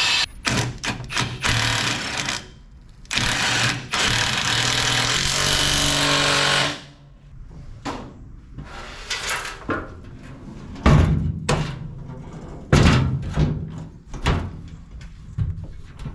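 A power tool working steel, run in several short bursts and then spinning down about seven seconds in; after that, scattered metal clanks and knocks.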